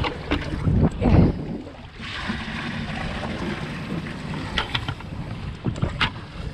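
Wind buffeting the microphone aboard a small open boat, with a few knocks and thumps in the first second or so, then a steady rush with a faint low hum.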